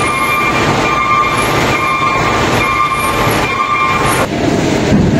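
Loud, steady rumble of vehicle and ship engines on a ferry's enclosed car deck, with an electronic beep repeating about once a second, like a vehicle's reversing alarm, which stops about four seconds in.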